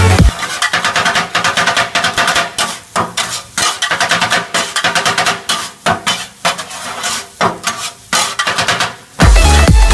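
Kottu roti being chopped on a flat iron griddle: a rapid, irregular metallic clatter as two steel blades strike the hotplate several times a second. Electronic dance music cuts back in near the end.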